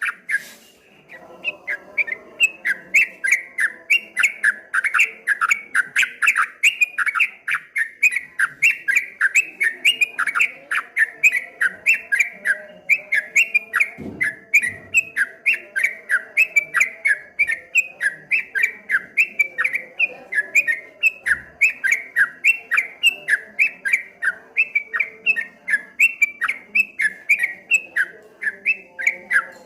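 A yellow-vented bulbul (trucuk) sings a fast, unbroken string of short whistled notes, about three or four a second, in the rapid 'ropel' style. The song pauses for about a second at the start, then runs on without stopping.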